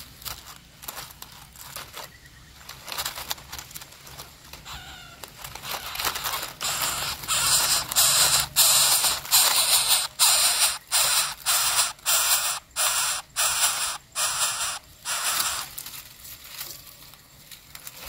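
Greater coucal chicks begging to be fed: a run of harsh, hissing calls about two a second. The calls grow loud in the middle and die away near the end.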